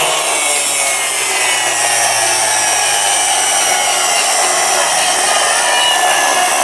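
Large toy Gordon engine running with a steady whirring hiss that holds at one level throughout.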